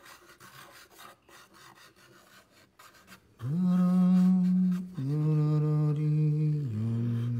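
Faint scratching of a pencil on paper, then about three and a half seconds in a man hums three long, steady notes, each lower than the one before.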